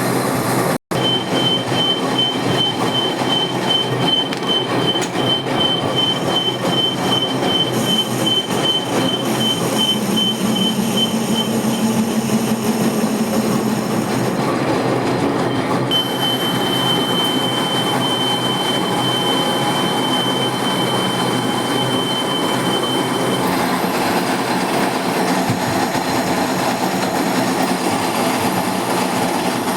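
Metal-turning lathe cutting steel, a steady machining noise with a high-pitched tool squeal that pulses rapidly for about ten seconds, stops, then comes back as a steady squeal for about seven seconds.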